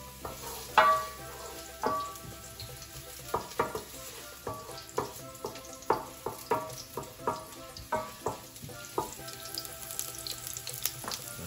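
Wooden spoon knocking and scraping against a metal frying pan while diced ginger is stirred in hot oil. The knocks are sharp, irregular and come about once or twice a second, each with a short ring, over a light sizzle.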